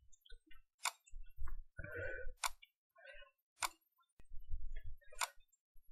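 Computer mouse clicking: four sharp single clicks about a second and a half apart, with faint low rustling between them.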